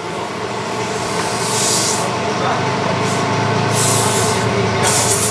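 A steady mechanical hum made of several tones, with repeated bursts of hissing from about one and a half seconds in.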